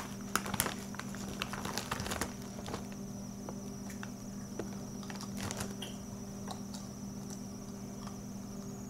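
Quiet room with a steady low hum and a faint, steady high-pitched whine, and a scatter of small clicks and taps in the first couple of seconds.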